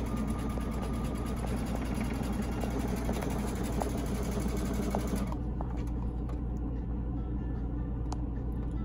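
Brother computerized sewing machine running at speed, stitching a zigzag seam in stretchy knit fabric with a fast, even needle rattle that stops abruptly about five seconds in. A steady low hum continues underneath.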